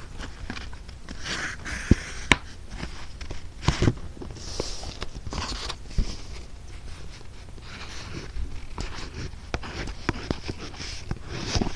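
Wax crayon scribbling on paper in several short scratchy strokes, with a few sharp knocks and clicks in between.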